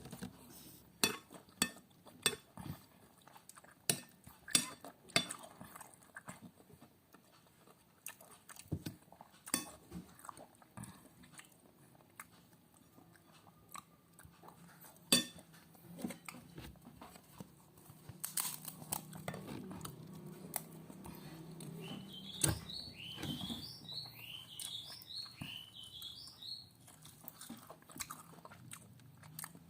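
Close-miked chewing and crunching of food, with scattered clicks of a spoon against a plate. About two-thirds of the way through, a quick run of high, rising chirps sounds for a few seconds.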